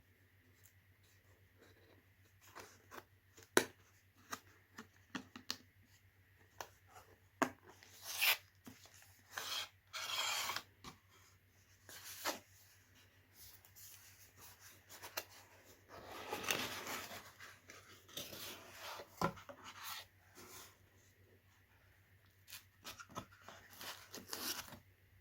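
Packaging being opened by hand: scattered clicks and knocks, with short bursts of paper or plastic rustling and a longer tearing rustle about two-thirds of the way through.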